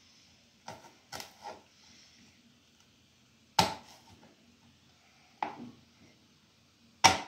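A plastic knife chopping garlic cloves on a plastic cutting board: about six separate sharp knocks at uneven intervals, the loudest about three and a half seconds in and near the end.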